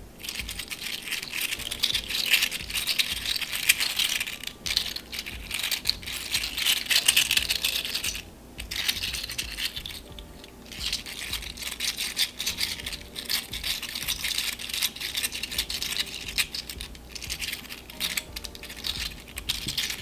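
Articulated slug fidget toy, its 3D-printed plastic segments clicking against each other as the body is flexed and wiggled in the hands: a rapid run of light clicks that follow the movement, broken by two brief pauses around the middle.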